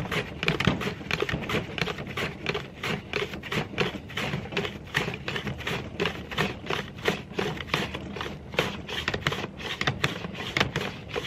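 Onion being pushed rapidly back and forth across a plastic mandoline slicer's blade, each pass shearing off a thin slice with a short clack, about four strokes a second in an even rhythm.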